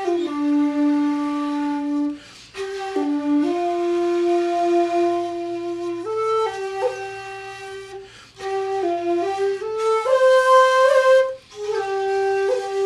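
Two shakuhachi bamboo flutes playing a slow traditional Japanese melody in long held notes, stepping between pitches, with brief breath breaks about two, eight and eleven seconds in.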